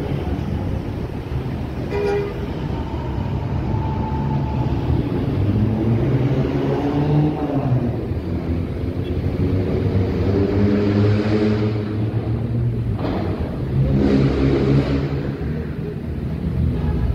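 Bus with a telolet basuri musical horn, its horn sounding tunes of several tones in stretches over the running engine.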